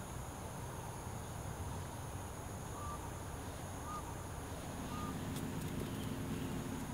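Outdoor ambience: a steady high-pitched insect drone over a low rumble, with a bird giving three short chirps about a second apart midway through.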